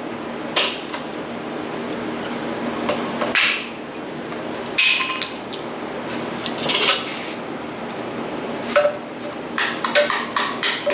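Hammer blows on a welded steel log-splitter linkage assembly, knocking out the shims wedged in it during welding. There are a few single knocks a second or two apart, then a quick run of blows near the end, about four a second.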